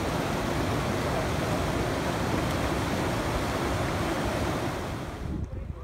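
Fast mountain river rushing over boulders: a steady rush of water that cuts off suddenly about five seconds in.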